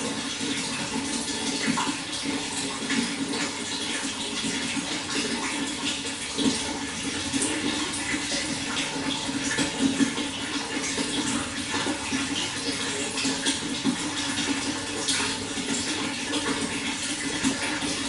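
Running water: a steady rush with continual small splashes and gurgles.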